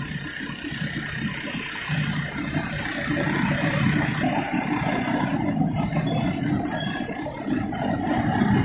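Steady low industrial machinery noise with some rattling, getting louder about two seconds in.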